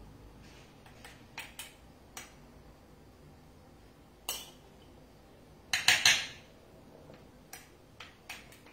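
Metal spoon clinking and scraping against a plate and a pastry ring mould as cooked black rice is scooped and pressed into the ring. The clicks are scattered, with the loudest quick cluster about six seconds in.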